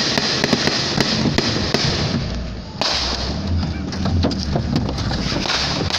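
Jostling handling noise from a phone carried on the move, full of knocks and thuds, with voices in the background. It drops away briefly about two and a half seconds in, then comes back suddenly.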